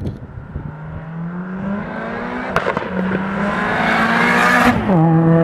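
Audi A3 quattro's tuned 1.8-litre 20-valve turbo four-cylinder, fitted with a big Garrett 3071 Gen 2 turbo, accelerating hard toward and past: the revs climb, drop at a quick upshift with a sharp crack about two and a half seconds in, climb again louder, then fall suddenly as the throttle is closed near the end.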